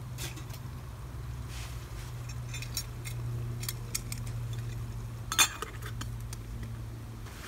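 Light metal clinks and taps of a spoon and a small metal cooking pot being handled on a camp stove, with one sharper clank about five and a half seconds in, over a steady low hum.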